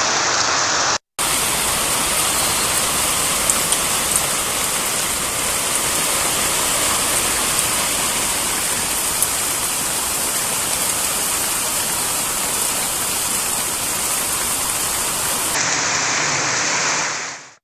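Heavy rain pouring down steadily onto a street, a dense, even hiss of rain. It breaks off for an instant about a second in and fades out near the end.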